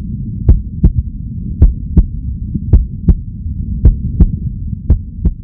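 Heartbeat sound effect: five double thumps, lub-dub, about one a second, over a steady low rumble.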